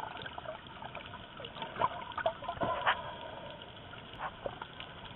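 Water sloshing and trickling around a camera held at and just under the surface, with irregular small clicks and pops of bubbles and splashes.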